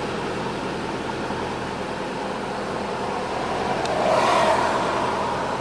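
Steady rush of wind and tyre noise while riding along with a group of road bicycles on asphalt, swelling briefly about four seconds in.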